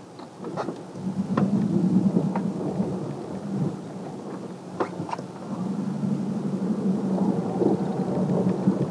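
Truck driving slowly over snowy ground, heard from inside the cab: a steady low engine hum that swells about a second in and again later as the truck moves off. Scattered clicks and knocks come from the cab.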